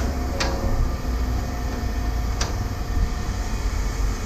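A steady low rumble with two short, sharp clicks, about half a second in and again about two and a half seconds in.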